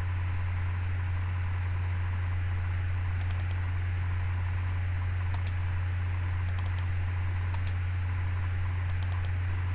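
Steady low electrical hum, with short clusters of quick clicks from a computer mouse scattered through it, about five times.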